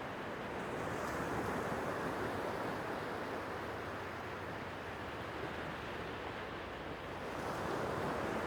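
Sea waves washing against the shore: a steady wash that eases off mid-way and swells again near the end.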